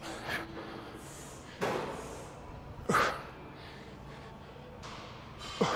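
A man breathing out hard with each rep of straight-leg Romanian deadlifts. There are three loud, sharp breaths a second or two apart, and the last ends in a short falling grunt.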